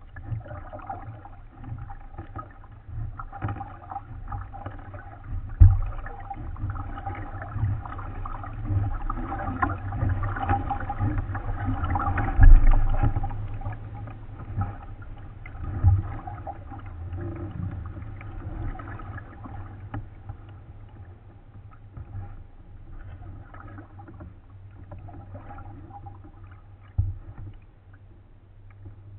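A kayak being paddled across a lake: paddle strokes and water washing along the hull, with a few dull knocks carried through the hull. Heard from a camera mounted on the bow.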